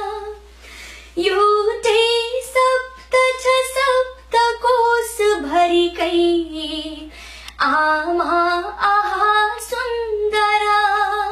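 A woman singing a Nepali poem alone, without accompaniment: a melodic line of held, gliding notes broken by short pauses for breath.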